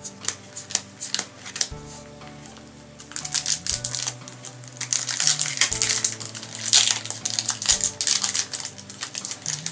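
Yu-Gi-Oh booster packs and trading cards being handled: quick clicks and crackling of cards and foil wrappers, sparse at first and denser from about three seconds in. Background music with held low notes plays under it.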